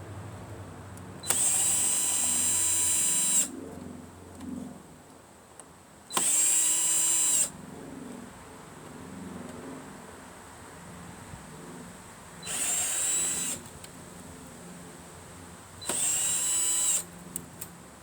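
Battery power drill-driver running in four short bursts of high whine, each one to two seconds long, backing out the small screws of a scrapped stereo or CB unit's casing. Quieter handling of the parts can be heard between the bursts.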